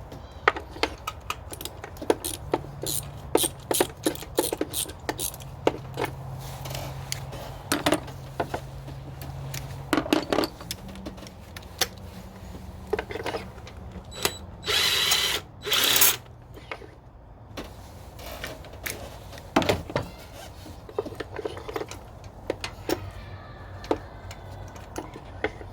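Spark plug being unscrewed with a spark plug socket and wrench: frequent sharp metallic clicks and knocks in irregular runs, over a low steady hum for the first half. About halfway through come two short, loud bursts of hiss.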